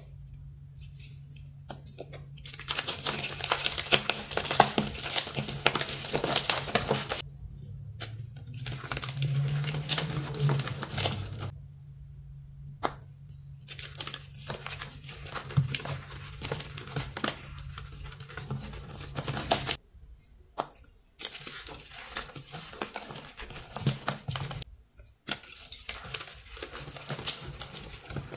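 Crushed chalk powder and crumbled block pieces crunching and crackling as they are squeezed between the hands, in several bursts of a few seconds with short pauses between them.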